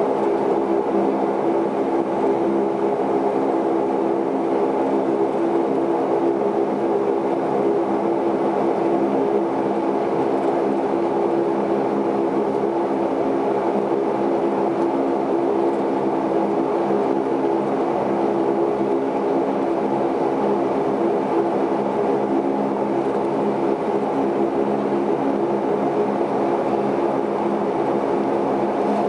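Saab 340B's twin turboprop engines and propellers running steadily while the aircraft taxis on the ground, heard inside the passenger cabin as a constant drone with a few held tones in it.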